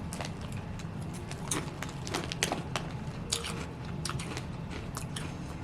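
A person chewing crunchy Tangy Chili Fusion Cheetos: a run of short, irregular crisp crunches.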